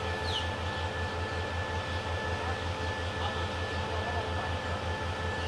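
QSY-class diesel-electric locomotive running at low power as it creeps slowly into the platform: a steady low throb, about five pulses a second, with a steady whine above it.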